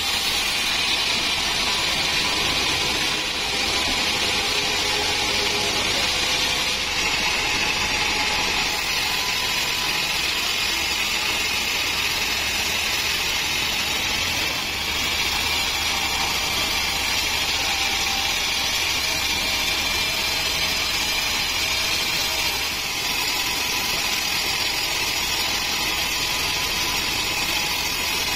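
Band sawmill's blade sawing lengthwise through a log, with the saw's motor running under it: a loud, steady whine and rush that hardly changes.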